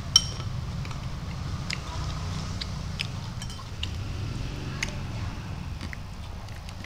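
A metal spoon clinks once, ringing, against a glass bowl just after the start, followed by scattered small clicks and smacks of eating rice by hand from a plate, over a steady low hum.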